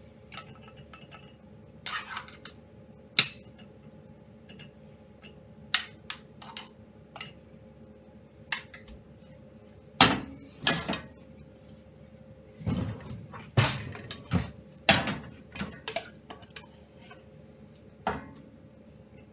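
A cooking utensil knocking and scraping against nonstick saucepans while food is scooped out onto a plate: a run of short sharp clinks and taps, busiest in the second half.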